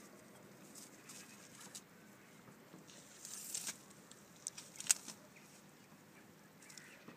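Donkey tearing at and chewing dry tobacco plants: crisp crackling and crunching of dry leaves and stalks, with a few sharp snaps, the loudest about five seconds in.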